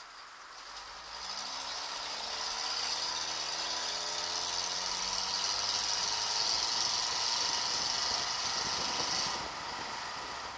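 GAZ-63 truck's straight-six flathead engine pulling away, its revs rising steadily for several seconds and then holding. A loud high hiss runs with it and cuts off suddenly about nine seconds in.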